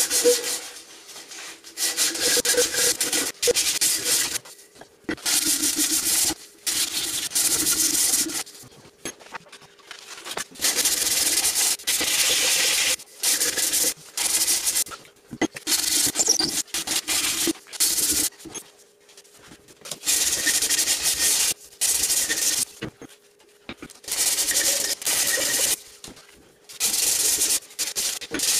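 Sandpaper rubbed by hand over a wooden hammer handle, in runs of quick back-and-forth strokes a few seconds long, broken by short pauses.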